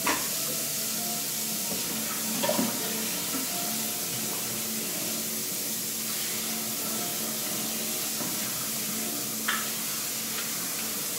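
Tap water running steadily into a kitchen sink, with a few brief knocks.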